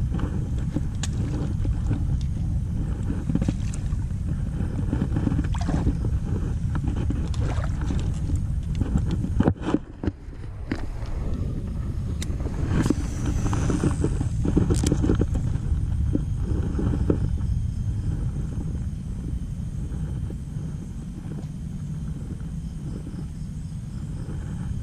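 Wind buffeting the microphone as a steady low rumble, with scattered clicks and rustles throughout and a brief drop about ten seconds in.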